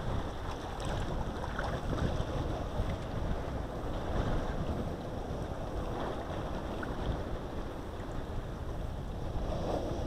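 Wind buffeting the microphone: a steady, uneven low rumble with a rushing hiss over it.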